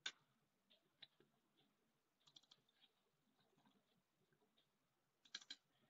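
Near silence broken by a few faint computer keyboard and mouse clicks: single clicks at the start and about a second in, and two quick clusters of clicks, one near the middle and one near the end.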